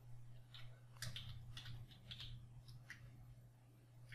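Faint typing on a computer keyboard: a run of scattered key clicks over a steady low hum.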